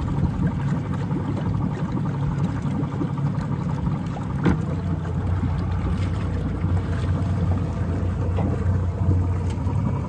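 Inboard engine of a boat with a 1996 Volvo Penta SX sterndrive running in forward gear at low speed while tied up, its propeller churning the water behind the drive. A click about halfway through, after which the engine's hum sits lower.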